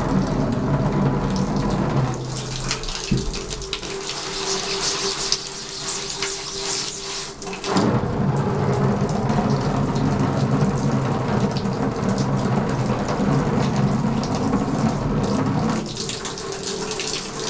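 Shower head spraying water onto a silk-screen frame in a bathtub, washing uncured photo emulsion out of the mesh. The steady rush changes character about 2 seconds in, again near 8 seconds and near 16 seconds as the spray shifts.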